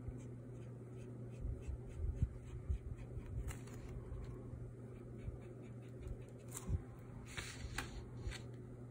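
Short, faint strokes of an ink marker scratching on paper, over a steady low hum. A few louder handling rustles come in the second half.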